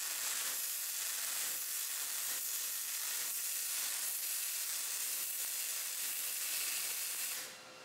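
MIG welding gun running a continuous bead on aluminium, a steady crackling hiss of the arc that stops near the end.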